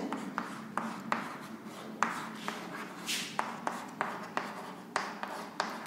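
Chalk writing on a chalkboard: a run of short, irregular taps and scrapes, about two to three a second, with one longer scratching stroke about three seconds in.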